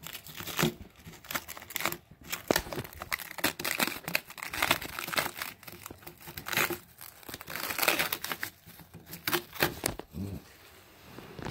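Clear protective plastic film being peeled off a chrome plastic bumper, crinkling and crackling in quick irregular bursts, easing off briefly near the end.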